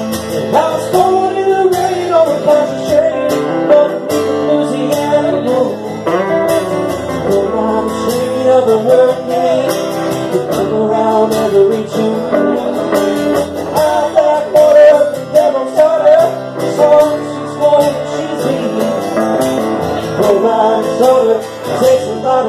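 Live country-blues instrumental break on electric guitar, a lead line with bent, sliding notes over strummed guitar backing.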